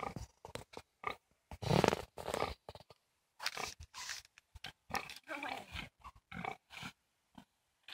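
Sow grunting in many short, irregular grunts, some low and some higher and rougher, while lying on her side being scratched.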